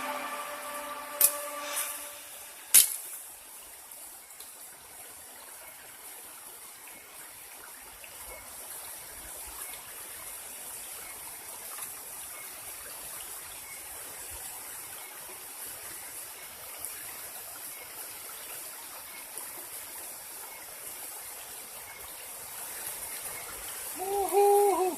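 Steady hiss of flowing river water, with two sharp clicks in the first three seconds.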